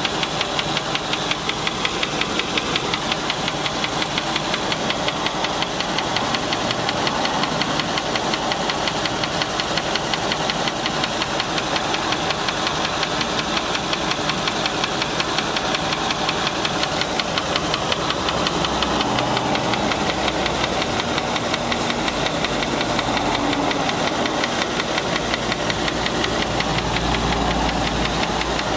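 Land Rover 4.6-litre V8 engine running with a steady, rapid, rhythmic knock. The uploader thinks it likely comes from a bad rod bearing, a collapsed piston skirt or a bad lifter.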